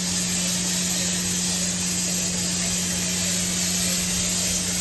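Airless spray gun spraying putty onto a wall: a steady, even hiss over a steady low hum.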